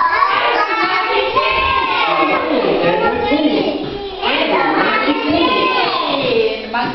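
A group of young children singing an English rhyme together, pausing briefly about four seconds in.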